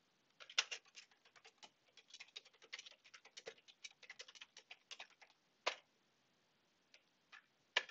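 Typing on a computer keyboard: a quick run of faint key clicks for about five seconds, then one louder keystroke, then a few scattered clicks near the end.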